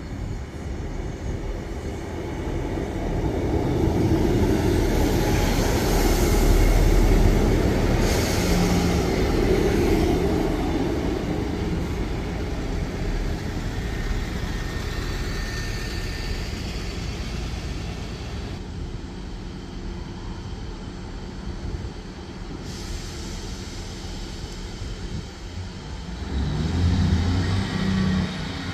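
Northern diesel multiple unit running on the track, its rumble and wheel noise swelling to a peak about six to eight seconds in as it comes close, then a steadier diesel engine rumble, with the engine note rising again near the end.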